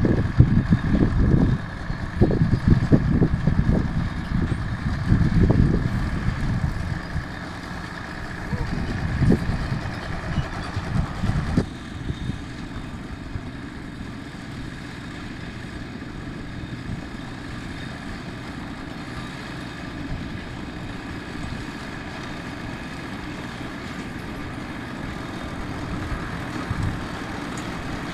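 Horse-drawn round baler running in the hay field: heavy, uneven low rumbling for about the first twelve seconds, then a steadier, quieter running hum with a constant high tone.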